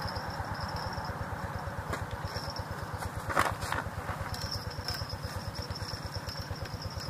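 A small engine running steadily with a fast, even low pulse, and a thin high whine coming and going above it. A short knock about three and a half seconds in is the loudest sound.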